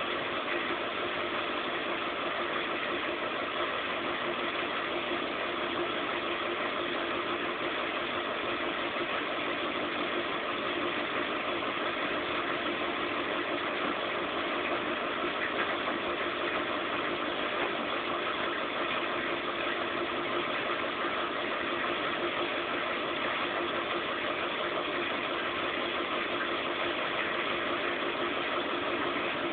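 Zanussi Z 630 front-loading washing machine running steadily, an even mechanical hum with several fixed tones and no pauses or changes in pace.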